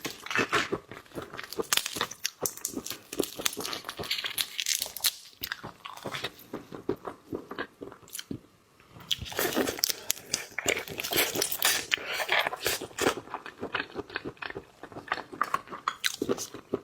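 Close-miked eating of seafood: rapid crunching and biting, made of many sharp clicks and crackles, with a short pause a little past halfway.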